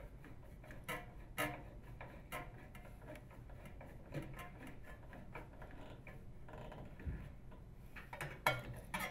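Phillips screwdriver threading a screw into the sheet-metal capacitor retaining bracket in a microwave oven's base, with faint, irregular small metal clicks and ticks as the screw turns.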